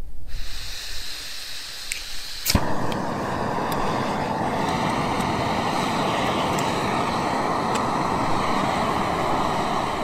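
A sharp click about two and a half seconds in, then a steady rushing hiss at an even level: a camping gas stove lit and burning.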